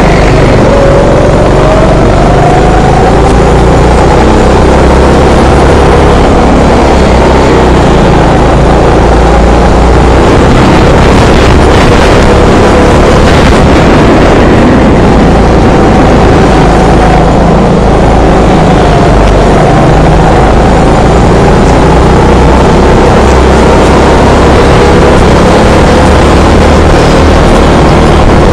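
Go-kart engine heard from on board, running loud and continuous, its pitch slowly rising and falling as the kart speeds up and slows through the corners.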